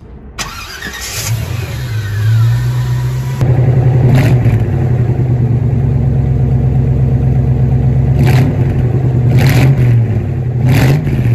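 A 350 cubic-inch V8 in a 1937 Ford street rod starts up and then settles into a steady, loud idle through its exhaust.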